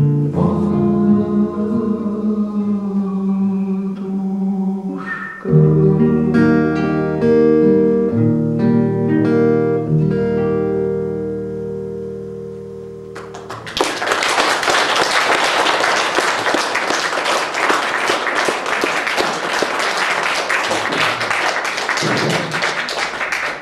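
Acoustic guitar playing the closing chords and picked notes of a song, each ringing and dying away. About fourteen seconds in, an audience starts applauding and keeps clapping.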